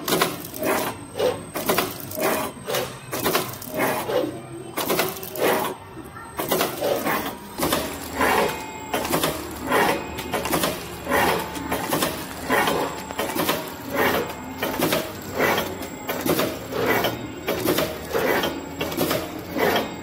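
Horizontal flow-wrapping (pillow-pack) machine running, its sealing and cutting mechanism clattering in an even, quick, repeating cycle as it wraps blocks of clay in film.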